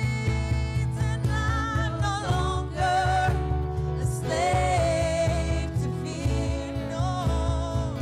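Live worship band playing a slow song: women singing sustained phrases with vibrato over keyboard and a steady low bass.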